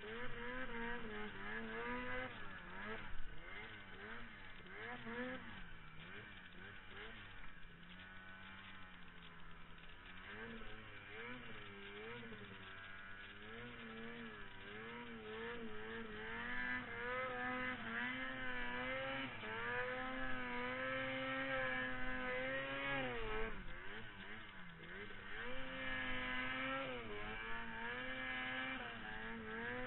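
Ski-Doo snowmobile engine revving under throttle, its pitch wavering up and down as the throttle is worked. The pitch dips briefly about three quarters of the way through, then climbs again.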